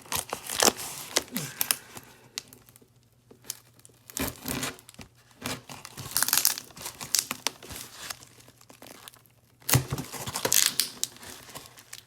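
Cardboard box being scraped, picked at and torn open by hand, in irregular bursts of tearing and crinkling broken by short pauses.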